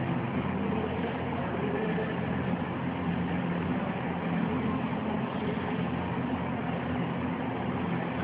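Steady low rumble and hiss of a large room's background noise, with no distinct events.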